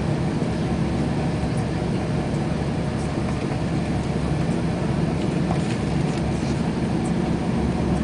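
Steady low rumble of a moving train heard from inside the passenger car, wheels running on the rails at speed under a constant hum, with a few faint light ticks.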